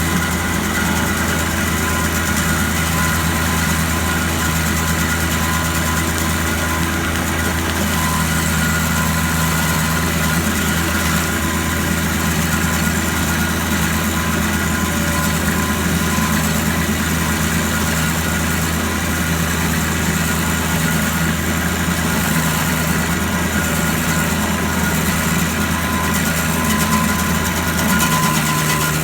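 An engine running steadily at a constant speed, with a deep, even hum that does not change.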